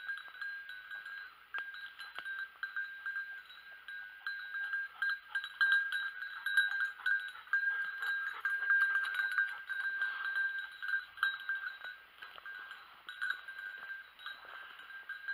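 A hunting dog's collar bell jangling without a break as the dog runs and quests through the undergrowth. It rings loudest through the middle, as the dog passes close. The unbroken ringing is the sign that the dog is still moving and not yet on point.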